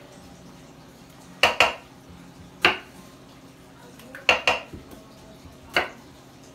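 Chef's knife cutting red potatoes on a wooden cutting board: about six sharp knocks at uneven intervals, some in close pairs.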